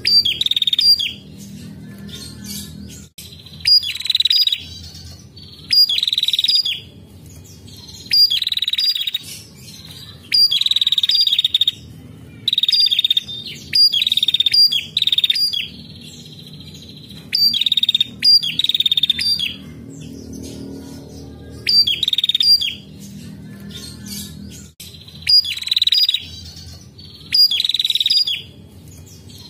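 Female ashy tailorbird (prenjak) calling repeatedly: short, loud, high, rapid trilled phrases, each opening with a sharp note, repeated every second or two.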